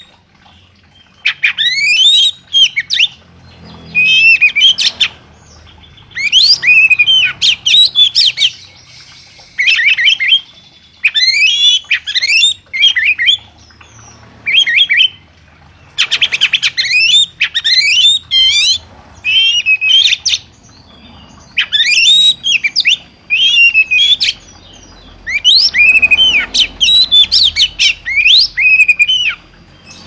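Oriental magpie-robin (kacer) singing loudly: rapid, varied phrases of sweeping whistles and harsher notes, a second or two long, with short pauses between them.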